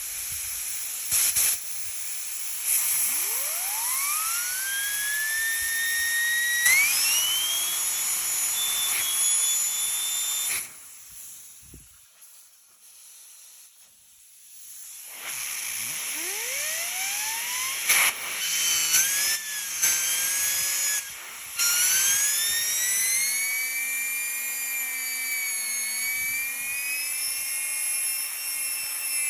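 Vacuum cleaner fan motor running with a high whine and a rushing hiss, the whine rising as the motor spins up. It cuts off about ten seconds in, goes much quieter for a few seconds, then starts again and spins back up to a steady high whine.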